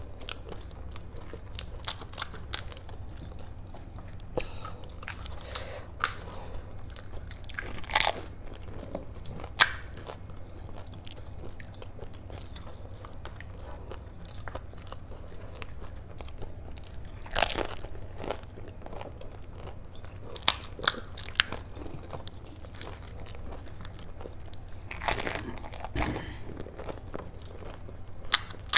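Pani puri being eaten: crisp, hollow fried puri shells cracked open and bitten, with chewing and sharp crunches scattered irregularly through it, including a quick run of three crunches and a cluster near the end. A steady low hum runs underneath.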